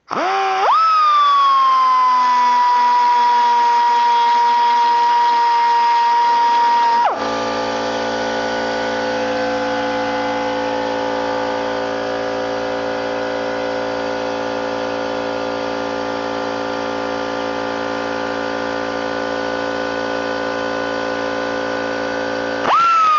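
1/4-inch pneumatic die grinder spinning up with a rising whine that settles into a steady high-pitched whine for about seven seconds. About seven seconds in the sound changes to a lower, steady hum with many tones that runs most of the rest. Near the end the grinder's whine rises and spins up again.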